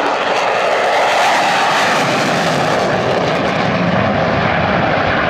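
Lockheed Martin F-35 Lightning II's single Pratt & Whitney F135 jet engine roaring on afterburner as the jet climbs steeply. A loud, steady jet roar.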